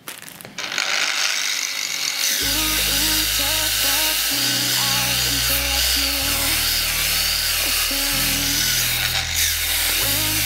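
Background music with a bassline changing about every two seconds, laid over the steady whirr and scrape of an angle grinder's wire cup brush working a wooden board at the grinder's lowest speed setting.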